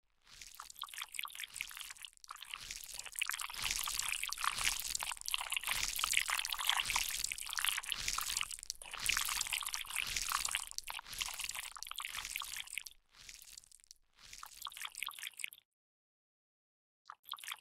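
Wet squelching sound effect: a dense crackle of many small wet clicks and squishes, broken by brief gaps and stopping for about a second and a half near the end before a short last burst.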